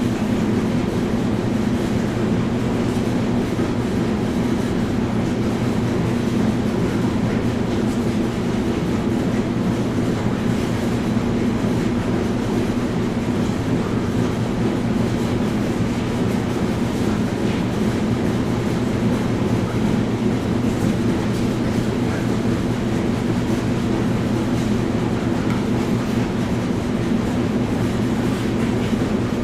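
Washing machine running, a steady low hum and rumble that holds unchanged throughout.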